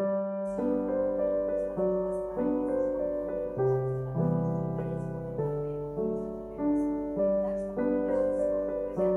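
Gentle background piano music: a slow melody of held notes over changing bass notes.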